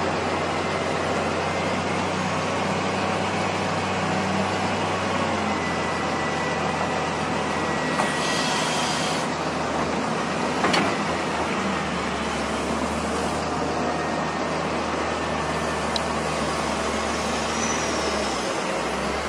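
Wheel loader's diesel engine running steadily as it works snow. Around the middle there is a brief hiss, then a single sharp knock.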